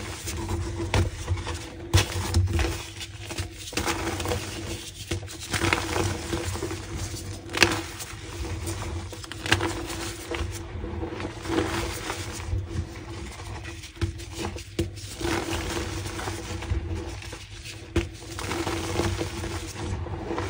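Close-miked crunching and chewing of pink gym chalk: irregular dry crunches and crackles, with a faint steady hum underneath.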